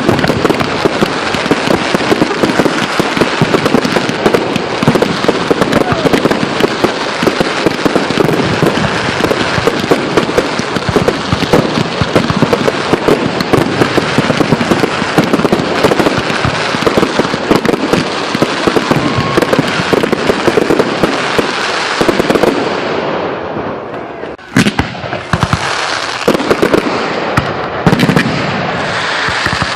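Aerial fireworks bursting in a rapid, dense barrage of bangs and crackle. About 23 seconds in it eases to a brief lull, then separate loud bursts resume.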